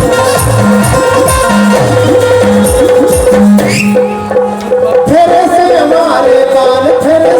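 Indian folk music: hand drums keeping a steady beat under a held melody, the beat breaking off about four seconds in before a wavering melody line carries on.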